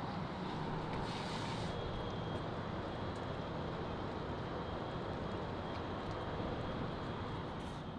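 Steady road and engine noise of a 2016 Volkswagen Golf GTI (MK7) being driven, heard from inside the cabin, fading out at the very end.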